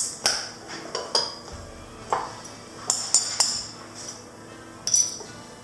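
A metal bottle opener clinking and tapping against the crown cap of a glass bottle as the non-twist-off cap is pried off. It makes a string of sharp metal-on-glass clinks, about eight in all.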